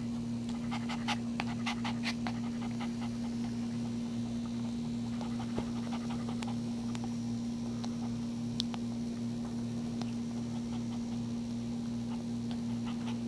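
Maltese mother dog panting while whelping, with a run of quick soft clicks in the first two or three seconds and a few single clicks later. A steady hum runs underneath throughout.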